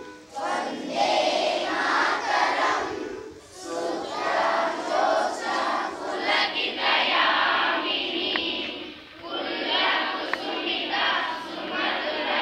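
A large group of schoolchildren's voices in unison, chanting or singing together in long phrases with short breaks for breath about three and a half seconds in and again near nine seconds.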